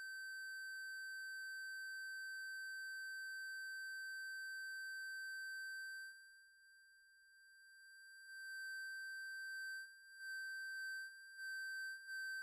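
Hexaphonic Witchcraft DIY synth sounding a steady high-pitched tone with overtones. About halfway through it drops away and slowly comes back, then it stutters on and off in short pulses, about two a second, near the end.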